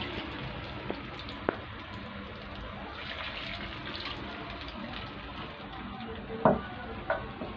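Rava bondas sizzling as they deep-fry in hot oil in a kadai, a steady hiss, with a couple of short knocks, the loudest about six and a half seconds in.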